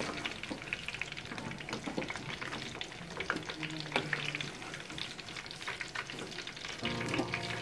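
Sweet potato chunks deep-frying in hot oil, a dense crackling sizzle, while a metal spoon stirs and lifts the pieces, with one sharp clink against the pan about four seconds in.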